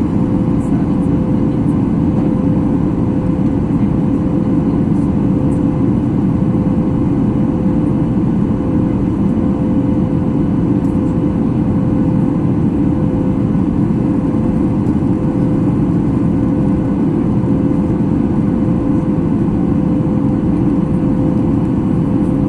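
Steady cabin noise of a Boeing 737 MAX 8 in flight: a constant low rush of its jet engines and airflow, with a steady hum running through it.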